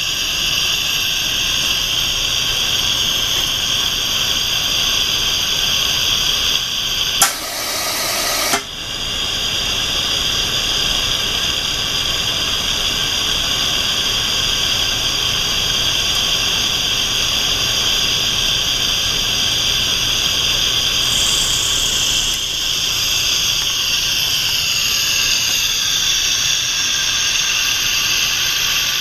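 Liquid nitrogen tank venting cold nitrogen gas with a steady hiss as it cools down after its first fill. About seven seconds in a louder rush breaks in for about a second and a half, then the hiss carries on.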